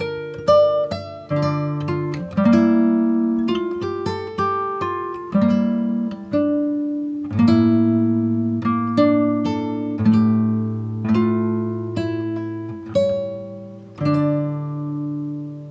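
Background music: an acoustic guitar picking single notes and chords, each note fading after it is plucked.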